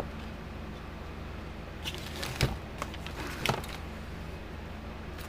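A few short knocks and clicks of handling, the loudest about two and a half seconds in, over a steady low hum.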